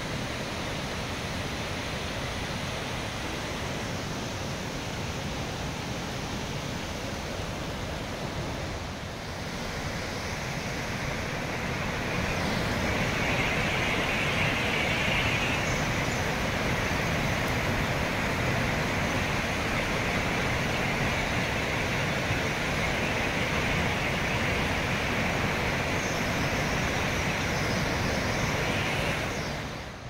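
Steady rush of river water flowing over a broad, shallow rock bed; it grows louder and hissier about twelve seconds in.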